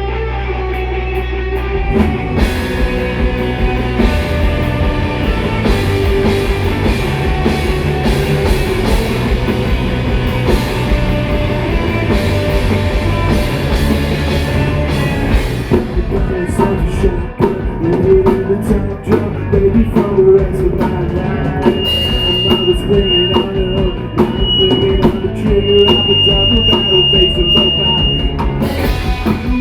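Rock band playing live: electric guitar, with the drum kit coming in about two seconds in. A high held tone sits on top through the last third.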